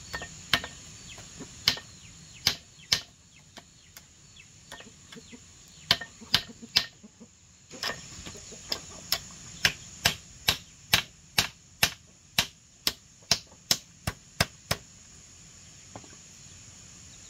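Small hand hammer striking slats on a bamboo frame: scattered single blows at first, then a quick steady run of about two to three strikes a second that stops about three-quarters of the way through.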